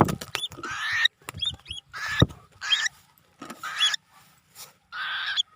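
Cockatiels calling: about five harsh screeches of roughly half a second each, with short high chirps between them.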